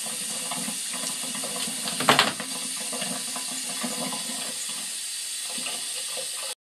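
Water running steadily from a shower-hose spout onto a bird's foot and a person's hand, with one brief louder clatter about two seconds in. The water sound cuts off suddenly near the end.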